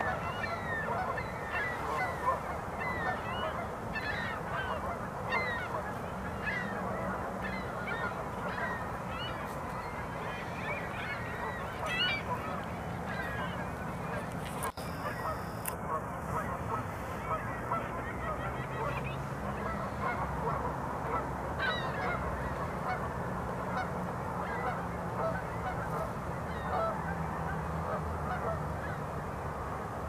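A flock of honking birds, many short overlapping calls all the way through, over a low steady hum.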